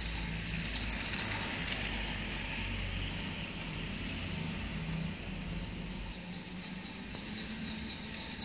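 Toy passenger train running past on plastic toy track, a rolling rumble with uneven peaks, loudest in the first couple of seconds and fading about six seconds in as it moves away.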